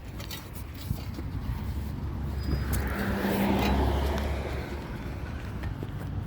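A car going by on the road: engine and tyre noise swell to a peak about halfway through, then fade.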